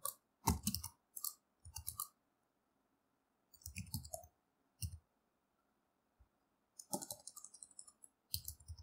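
Computer keyboard typing: short bursts of key clicks separated by pauses of a second or two.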